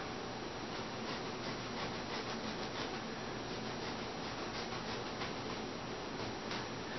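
Foam padding being shaved and peeled from a bathtub rim by hand: a steady scratchy rubbing made of many small strokes.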